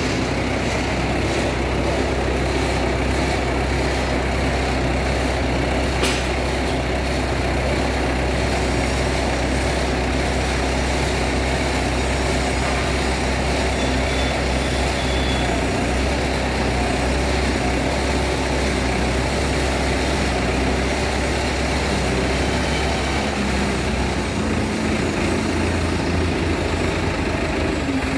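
Tractor engine running steadily under load, driving a tractor-mounted hydraulic earth auger as it bores a post hole into soil.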